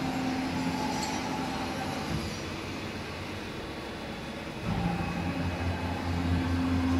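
Haas Mini Mill CNC vertical machining center running, a steady machine hum with several steady tones. About four and a half seconds in, a deeper, louder hum joins it.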